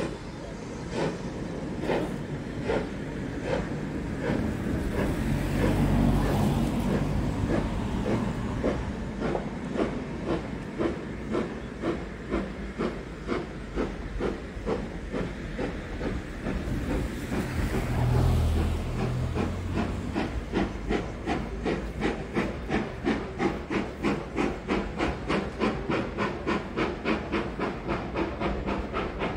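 Steam locomotive pulling away, its exhaust beats quickening from about one a second to about three a second. There are two louder spells of steam hiss, about five seconds in and again around eighteen seconds.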